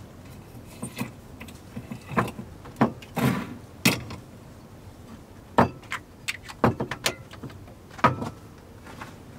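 Camping cookware being handled on a wooden table: a frying pan set on a small gas stove and a gas canister set down, giving a string of sharp knocks and clinks.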